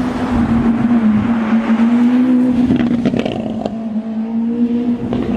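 A car engine running at a steady pitch, with a few sharp pops about three seconds in.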